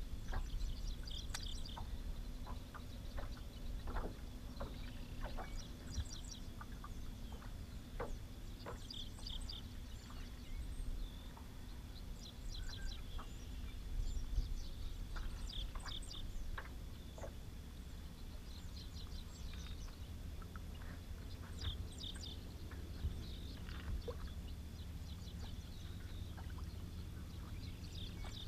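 A songbird singing short, high chirping phrases every few seconds over a steady low rumble, with scattered faint clicks and knocks.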